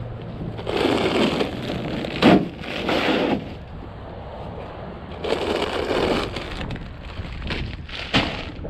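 Bags crinkling and rustling in three bursts as shopping is loaded into a pickup truck's bed, with a sharp knock about two seconds in and another near the end.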